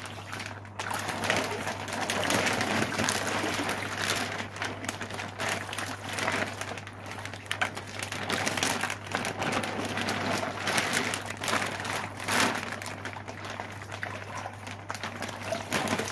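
Pond water splashing and lapping while thin plastic fish bags crinkle as they are handled at the water's surface, a dense run of small splashes and crackles, over a low steady hum.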